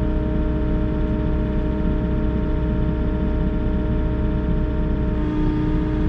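Volvo EC60E mini excavator's diesel engine running steadily with a constant pitched hum, heard from the operator's cab while the arm holds a suspended block.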